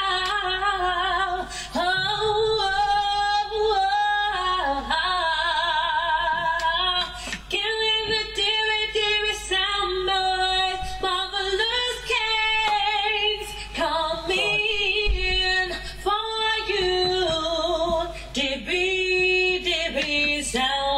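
A woman's singing voice played out as music, long held notes with a wide vibrato and short breaks between phrases, with little accompaniment.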